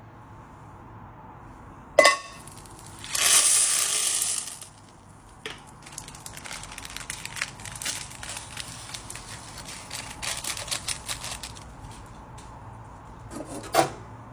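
Cooking sounds at a pot: a metal clink with a ringing tone, then a loud hiss lasting about a second and a half, then several seconds of scattered crackles and pops, and another ringing clink near the end.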